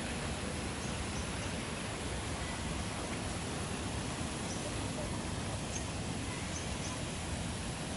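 Steady outdoor ambience of hiss and low rumble, with faint short high bird chirps scattered through it.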